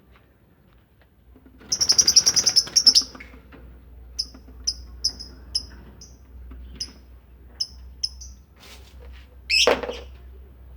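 Lovebirds chirping: a fast run of shrill high chirps, then single chirps about twice a second. A louder, harsher sound comes near the end.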